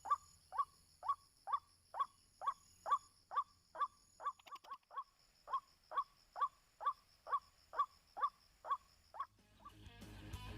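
White-breasted waterhen calling: a sharp, upward-sweeping 'kwak' note repeated about twice a second, with a brief faster flurry midway. The calls stop near the end as music fades in, and a faint steady high-pitched whine runs behind.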